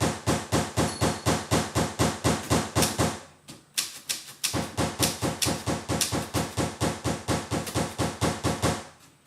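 Manual typewriter keys striking in a rapid run of clicks, about five or six a second, with a short break a little over three seconds in before the typing resumes.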